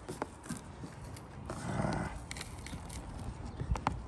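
Small knife slitting packing tape along the seam of a cardboard box: scraping and tearing, with a few sharp taps and clicks against the cardboard.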